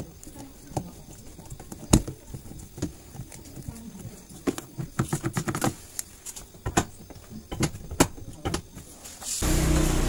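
Scattered clicks and knocks of hands handling the plastic drain valve of a Sharp washing machine, the loudest about two seconds in and eight seconds in. Near the end a steady hum and hiss comes in abruptly.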